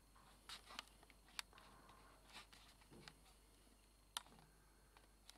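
Near silence: room tone with a few faint, sharp clicks, two of them a little louder.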